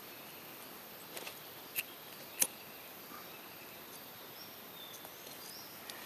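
Quiet outdoor background hiss with a few small sharp clicks, the sharpest about two and a half seconds in, and a few faint high bird chirps in the second half.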